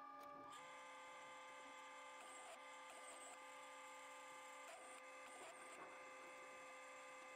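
Near silence: a faint steady whine of several tones, with a few soft rustles.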